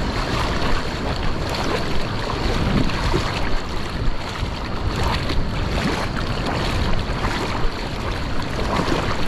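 Wind buffeting the microphone over water lapping and rippling around a kayak, a steady noise with small crackles throughout.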